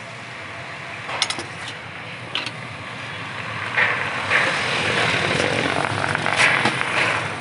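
Street traffic noise, growing louder about halfway through, with a couple of short metal clinks from a ladle against a steel chutney pot.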